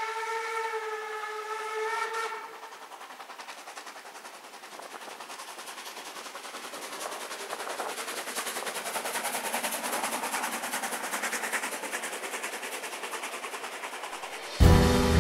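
Harz narrow-gauge steam locomotive of the Brocken Railway sounding its whistle, a steady chord of several tones that stops about two and a half seconds in. Its hissing, rapidly pulsing exhaust follows and grows louder as the train passes. Music cuts in just before the end.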